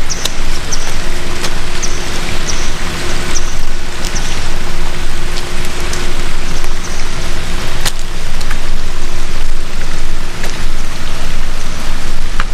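Loud, steady rushing of water, with short high chirps now and then over it.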